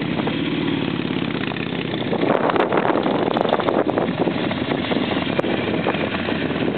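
Motorcycle engine running steadily, with a clearer engine note in the first second.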